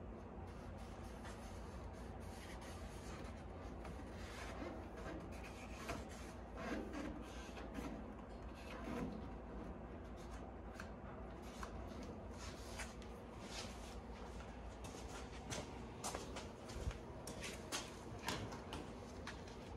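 Faint rubbing and scattered light taps and scrapes as a firewall panel is handled and fitted against a car body and frame, over a steady low hum.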